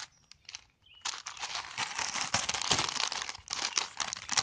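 Bag of Rap Snacks potato chips crinkling as it is handled right up against the microphone: a few light clicks at first, then about a second in a loud, continuous crackle of the packaging that lasts until near the end.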